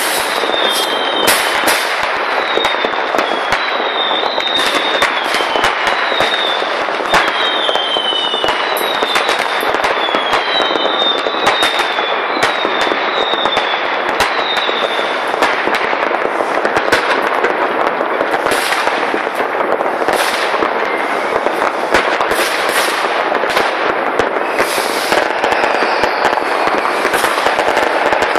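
New Year's Eve fireworks: a dense, continuous crackle of firecrackers and rockets with frequent sharp bangs. Many short falling whistles sound through the first half.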